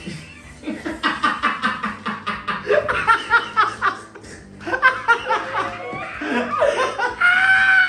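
People laughing hard together in rapid, loud bursts, ending in a long high-pitched laughing note near the end.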